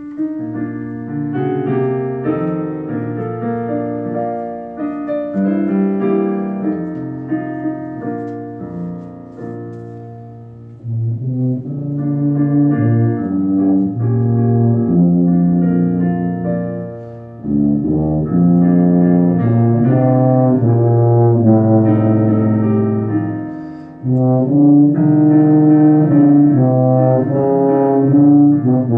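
Tuba playing a solo, note by note in phrases, with brief breaks between phrases about 11, 17 and 24 seconds in.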